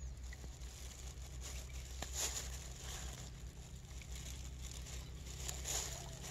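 Lumps of bran-and-rice bait splashing into a pond, twice, about two seconds in and near the end, over a steady low hum.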